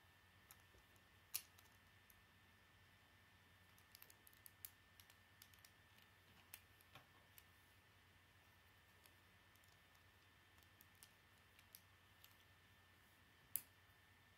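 Plastic Lego bricks clicking as they are handled and pressed together: scattered sharp clicks, with the loudest about a second in and another near the end and a quick run of them around the middle. A faint steady hum sits underneath.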